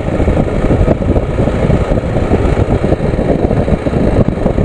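A vehicle driving along at road speed: steady engine and road noise under a heavy, fluttering wind rumble on the microphone.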